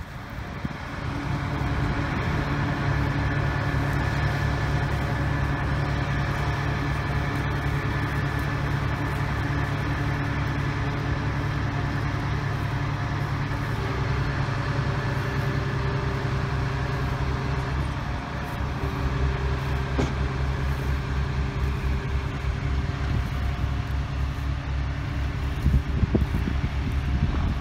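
RM 90GO! tracked compact crusher's diesel engine running steadily under remote control, with a higher tone that comes in about halfway and holds for most of the rest.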